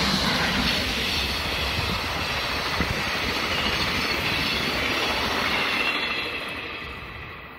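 Korail passenger train running past on nearby tracks: steady rumble of wheels on rail with a faint high ringing. It fades away after about six seconds as the last cars go by.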